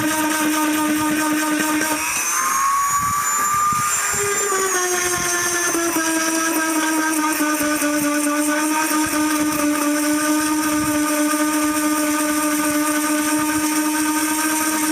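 Small electric power sander running steadily while sanding a dried sheep hide, a steady motor whine over scratchy abrasion. About two seconds in, the whine rises in pitch for a couple of seconds, then drops back and holds steady.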